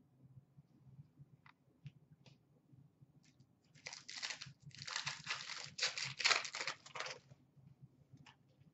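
Foil wrapper of a hockey card pack being torn open and crinkled: a run of rustling, tearing bursts from about four seconds in to about seven seconds, after a few light clicks of handling.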